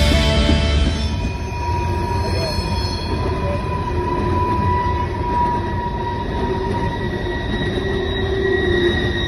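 Norfolk Southern open-top hopper cars rolling past, their wheels squealing on the rail: several steady high-pitched tones held over the rumble of the train.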